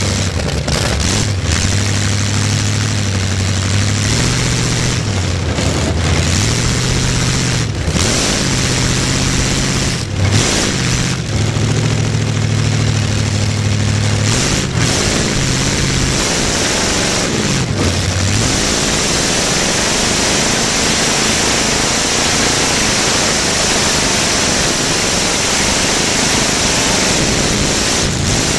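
Demolition derby car's engine heard from inside the car, running loud through open exhaust pipes sticking up through the hood as the car drives around the dirt track. The revs drop and climb back about four times, then hold steadier for the last third.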